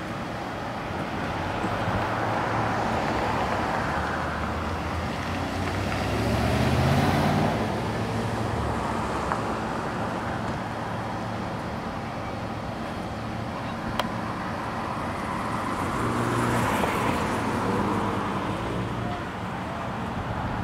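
Dodge Charger police car driven through a cone course, its engine rising in pitch as it accelerates, together with tyre noise on asphalt. The engine swells twice, about a third of the way in and again near the end, with a single sharp click about two-thirds of the way through.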